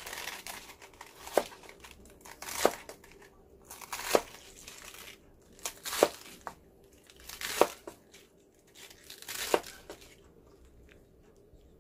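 Kitchen knife slicing through a head of iceberg lettuce on a plastic cutting board: about six slow strokes, each a crisp crunch of the leaves ending in a sharp knock of the blade on the board.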